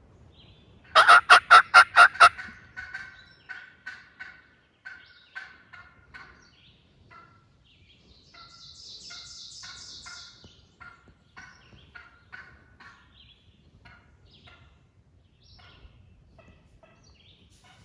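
Hen turkey yelping close by: a run of seven loud, evenly spaced yelps, then a long series of softer yelps and clucks that trail off.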